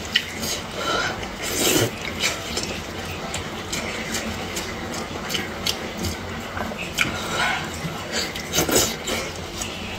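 Close-up eating sounds: gloved hands tearing apart soft, fatty braised pork knuckle, with wet, sticky squelches, smacking and chewing. Irregular clicks and short bursts, the biggest about two seconds in and again near the end.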